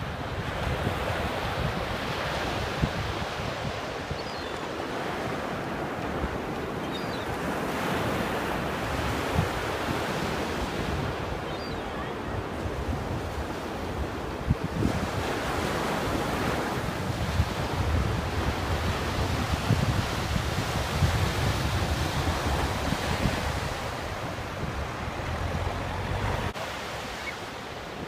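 Surf breaking and washing up a sandy beach, the noise swelling and fading with each wave, with wind buffeting the microphone.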